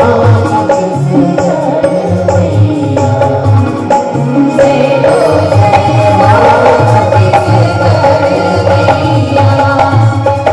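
Live Chhattisgarhi folk band music: tabla and nal drums keep a steady rhythm under a sustained melody from the band's instruments.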